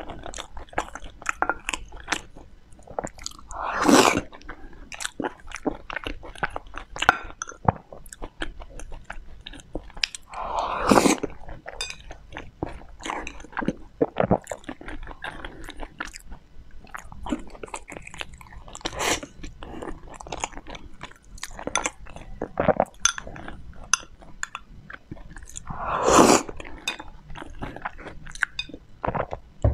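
Close-miked chewing of soft, sticky rice balls: a steady run of wet, clicking mouth sounds, with three louder, longer wet mouthfuls at about 4, 11 and 26 seconds in.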